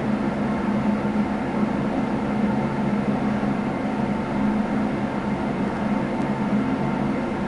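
A steady low hum over an even hiss, with no distinct events.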